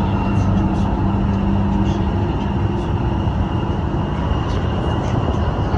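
Interior running noise of a Guangzhou Metro Line 1 Siemens A1 train: a steady rumble with a faint steady whine that holds one pitch throughout.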